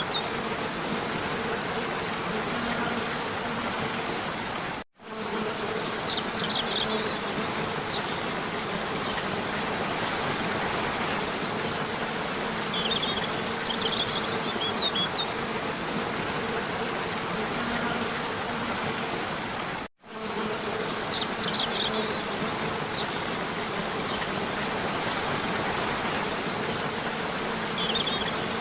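Steady buzzing drone, like insects, with short high chirps every several seconds. It cuts out abruptly twice, for a fraction of a second each time.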